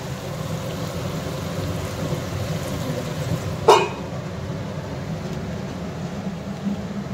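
Chicken curry sizzling in an iron kadai over a gas burner, with a steady low rumble under a soft hiss. About three and a half seconds in, a metal lid clinks down onto the pan, and the high hiss drops away once it is covered.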